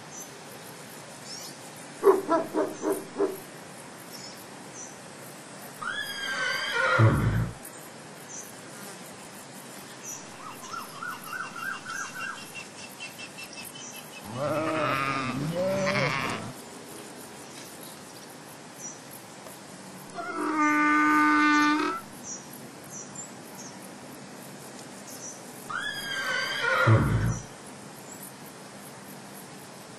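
Zebras calling: about six separate calls with pauses between them, some of them quick series of pulses.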